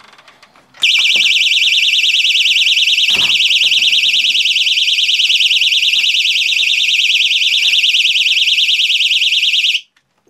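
Personal attack alarm set off by a string tripwire pulling out its pin: a piercing, pretty noisy high-pitched tone with a fast warble that starts suddenly about a second in and cuts off abruptly near the end. A dull thump sounds about three seconds in.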